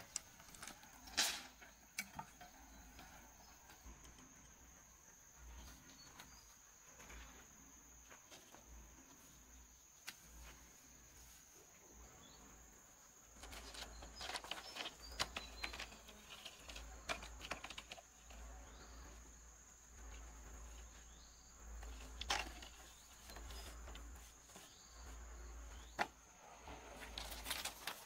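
Insects chirring in a steady high drone, with scattered knocks and clattering of split bamboo strips being picked up and laid on the grass, busiest in the second half, and a few sharp knocks.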